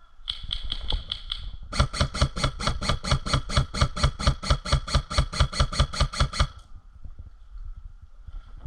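Airsoft gun firing a quick string of shots, about five a second for some five seconds, after a shorter burst of lighter clicks near the start.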